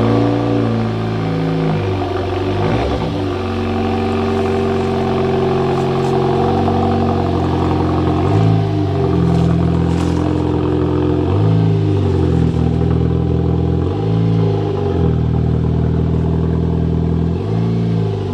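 Dodge Caliber SRT4's turbocharged 2.4-litre four-cylinder engine running under way, its note dropping and climbing back several times as the car is driven.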